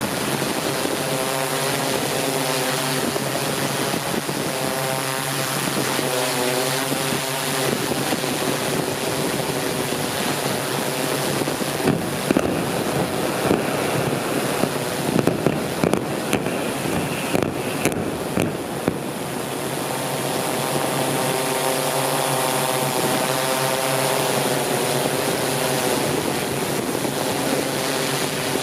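Steady whine of a drone's propellers, its pitch wavering. About halfway through, a run of sharp cracks and bangs comes over it as explosive demolition charges bring down a bridge.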